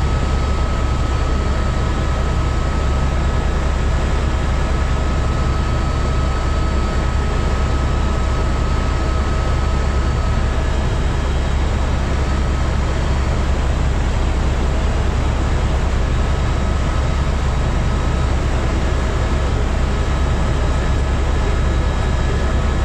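Helicopter cabin noise in steady cruise flight: a loud, even low drone from the rotor and engine with a thin steady whine above it.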